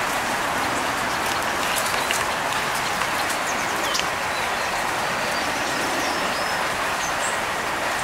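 Steady hiss of outdoor background noise, with a few faint, short, high chirps from small songbirds scattered through it.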